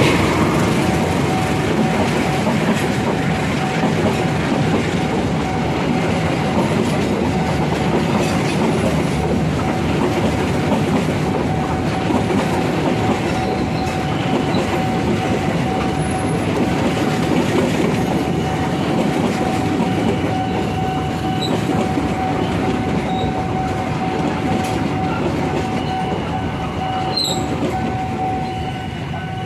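A passenger train's coaches rolling past close by, the steel wheels rumbling on the rails with a thin steady tone over the noise. The sound eases off near the end as the last coach clears.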